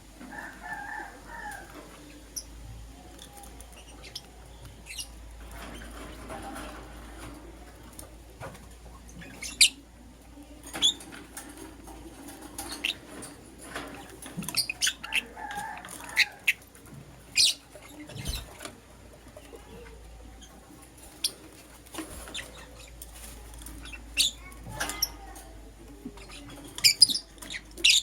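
Lovebirds making short, sharp high chirps at irregular intervals, several in quick succession at times, with softer chattering between them.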